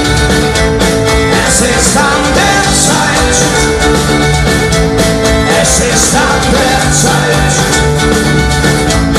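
Medieval folk-metal band playing live at full volume, heard from within the audience: electric guitars, drums with a steady cymbal beat, and violin. The sound is dense and unbroken.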